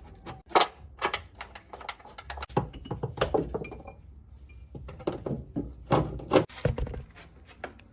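Hand tools and metal suspension parts clanking and knocking at irregular intervals, with a couple of short metallic rings near the middle, as the new upper control arm is fitted to the car's front suspension.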